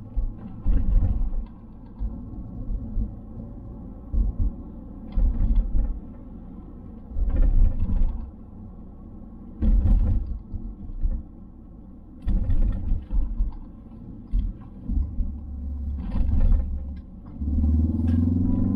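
Ford Focus ST Mk4's 2.3-litre EcoBoost four-cylinder, on a Mountune m330 map, heard from inside the cabin while driving: a steady engine drone with road noise, broken every second or two by low thumps and knocks. Near the end the engine note grows louder as it pulls harder.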